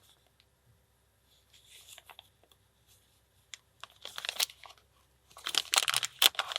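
Plastic packaging crinkling and tearing as an item is unwrapped, in irregular bursts that grow louder toward the end.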